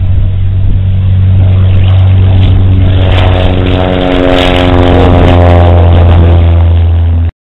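Propeller airplane's piston engine running at full power close by, its drone growing louder and fuller about halfway through, then cutting off suddenly near the end.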